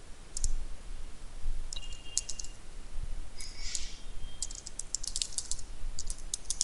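Computer keyboard typing: quick clusters of keystrokes with short pauses between them, as a terminal command is entered.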